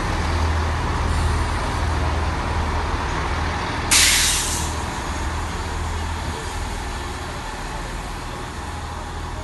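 GWR Class 158 diesel multiple unit running into the platform with a steady low engine hum. About four seconds in comes a sharp hiss of released brake air, the loudest sound, dying away within half a second.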